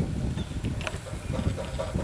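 A 5/8-scale Wood Brothers steam traction engine running in place: a low, uneven rumble with a few light mechanical clicks.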